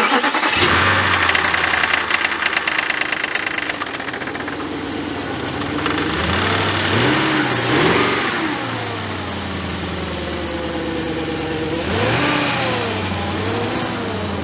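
2004 VW Touareg V8 engine just after starting, running at a fast idle, then revved up and back down twice, about halfway through and near the end. It is being tested for a misfire after two ignition coils were swapped between cylinders.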